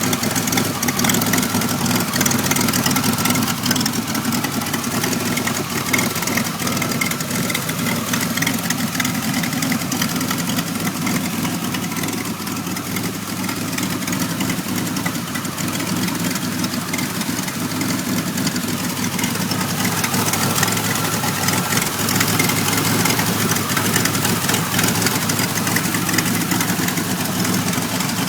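1991 Pontiac Firebird V6 engine idling roughly and unevenly, a little quieter through the middle. The rough idle comes with trouble codes 33 and 43 that the owner has not yet cleared.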